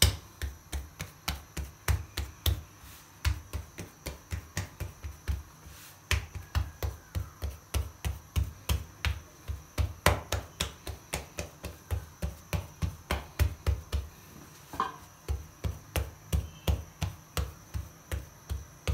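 Palms patting a ball of maize-flour (makki) dough flat on a cloth: a quick, even run of soft slaps, about three or four a second, pausing briefly twice.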